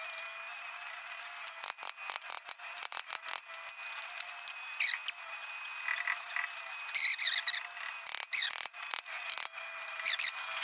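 Clusters of sharp metal clicks and clinks as a three-leg puller is worked on an old Rajdoot's magneto flywheel, with three short high squeaks of metal under strain between them. The rotor is stuck fast, seized after years unopened. A faint steady high hum sits underneath.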